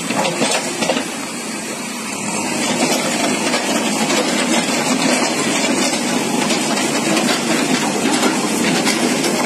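JCB backhoe loader's diesel engine running steadily, a dense noisy sound that dips a little in the first couple of seconds and then holds.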